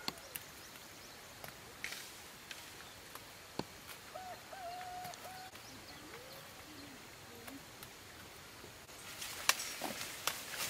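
Quiet outdoor ambience with a few short animal calls near the middle. From about nine seconds, dry corn leaves and stalks rustle and crackle as someone pushes through standing corn.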